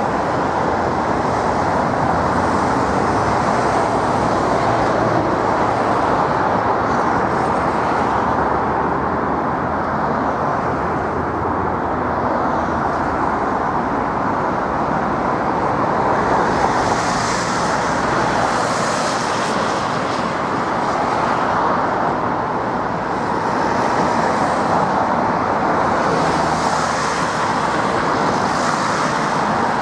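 Steady, loud roar of a distant widebody jet airliner's engines on the runway, with no single event standing out.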